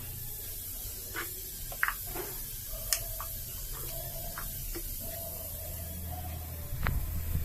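Scattered light clicks and taps over a low steady hum; near the end a louder rushing noise starts.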